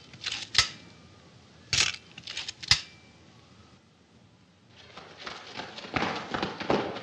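A few sharp clicks in the first three seconds, then a flurry of scuffling footsteps and thuds on a concrete floor that builds from about five seconds in.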